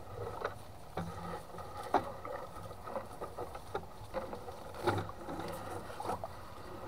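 Gill net being hauled out of the water over the side of a wooden boat, with scattered knocks and handling noise, the loudest knock about five seconds in.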